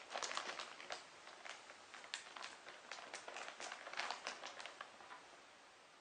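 Thin plastic shopping bag crinkling in irregular crackles as a cat moves about inside it, dying away about five seconds in.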